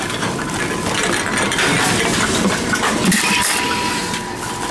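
Envipco CF-1500 reverse vending machine running, clattering and crunching as it takes in and compacts a plastic bottle. A thin steady tone joins in over the last second and a half.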